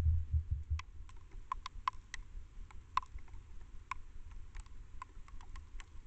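Icy snow striking the trail camera's housing in irregular, sharp ticks, starting about a second in, after a brief low rumble.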